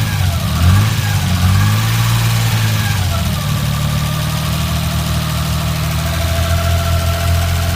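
Freshly rebuilt Nissan Skyline R33 GTS-T's RB25DET turbocharged straight-six running, revved gently up and down a few times and then settling to a steady idle about three seconds in. A lifter is still a bit noisy.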